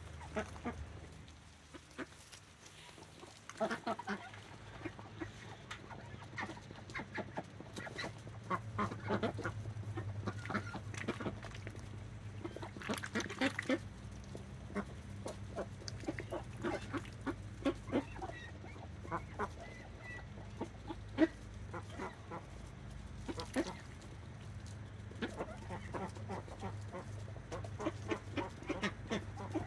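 A flock of domestic ducks feeding with their bills in a tub: a dense, irregular patter of clicks, snaps and dabbling, mixed with low duck calls.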